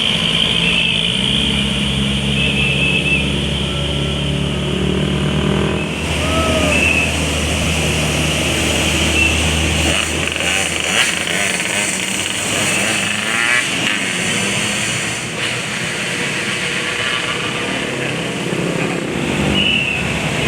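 Roadside traffic: a heavy vehicle's engine drones steadily for about the first ten seconds, then passing traffic noise takes over, with motorcycles among it. No telolet horn sounds.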